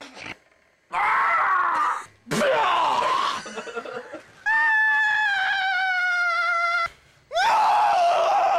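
A person screaming, loud and shrill: four screams, the third held for over two seconds with its pitch sagging slightly, the last starting with an upward swoop.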